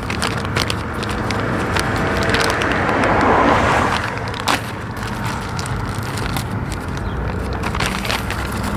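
Plastic intake parts being handled and pushed into place by hand: scattered clicks, knocks and scraping. A swell of noise builds to a peak about three and a half seconds in, then fades.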